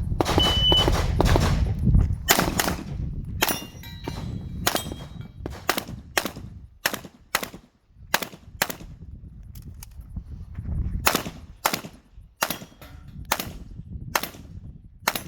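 A rapid string of handgun shots during a timed IPSC stage run, many fired in quick pairs, with a short pause about two-thirds of the way through before firing resumes.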